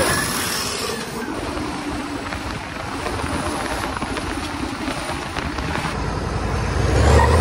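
Turbo-diesel engine of a shortened Ford pickup on 38-inch tires driving along the road, mixed with tyre and wind noise; the engine grows louder near the end.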